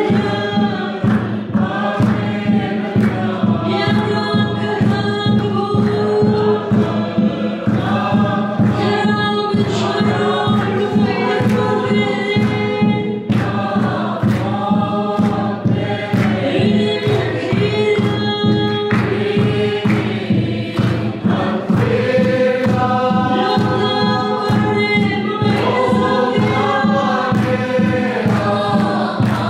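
Mizo lengkhawm: a large mixed group singing a hymn together, kept in time by a steady beat on a large barrel drum (khuang).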